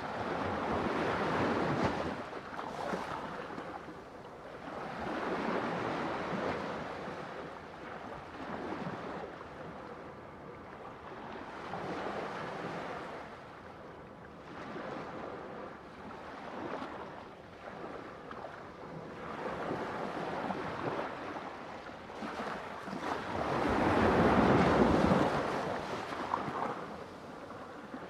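Ocean waves breaking and washing up in a series of swells that rise and fade every few seconds, the biggest one coming near the end.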